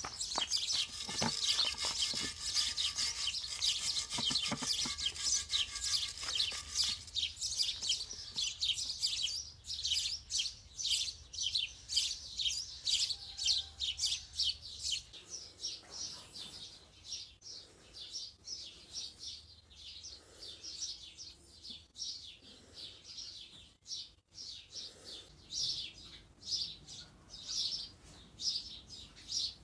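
Stiff hand wire brush scrubbing rust off a cast-iron machine table in quick back-and-forth strokes, a few scratchy strokes a second.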